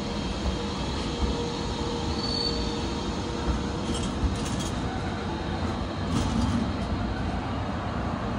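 Freight train of intermodal pocket wagons behind a DB class 185 electric locomotive rolling past slowly: a steady rumble of wheels on rail with a few sharp clicks, a brief high wheel squeal about two seconds in and fainter squeaks later on.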